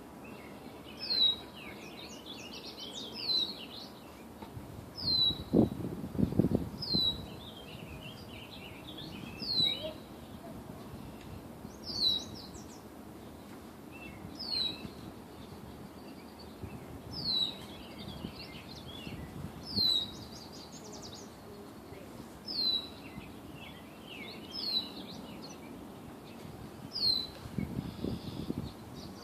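Birds calling: a short high note falling in pitch, repeated about every two to three seconds, with bursts of quieter chirping between. Low rumbling bumps come around six seconds in and again near the end.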